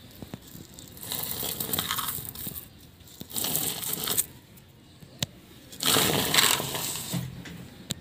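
Dry straw nesting material rustling and crunching in three bursts of about a second each, with a small click between the second and third.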